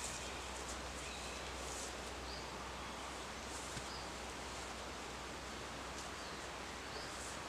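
Woodland ambience: a steady outdoor hiss with faint rustling and a few short, high bird chirps every second or two.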